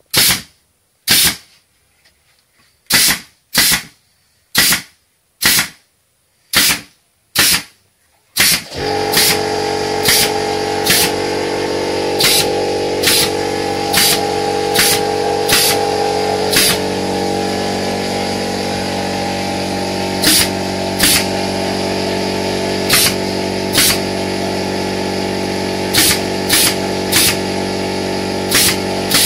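Pneumatic brad nailer firing nail after nail into wood, sharp shots about one a second. About eight seconds in, an air compressor starts up and runs steadily under the continuing shots.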